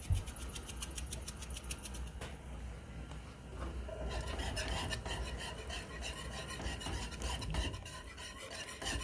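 A glass pepper shaker shaken quickly over the pan, a fast run of short ticks for about two seconds. From about four seconds in, a wire whisk stirs milk gravy in a metal skillet, scraping rhythmically against the pan.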